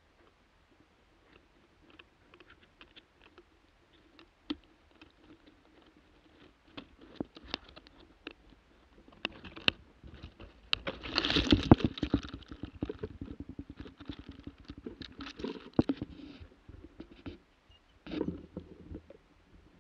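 Handling noise: rustling and scattered clicks as the camera is moved through moss, grass and low branches, with a denser, louder stretch of rustling about halfway through and a short burst near the end.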